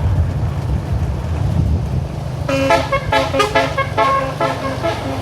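Low vehicle engine rumble, then about two and a half seconds in a 'telolet' multi-tone bus horn starts playing a quick tune of short stepping notes.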